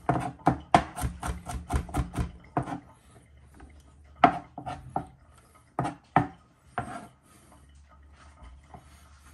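Knife chopping garlic finely on a chopping board: a quick run of strikes, about four or five a second, for the first couple of seconds, then a few separate knocks.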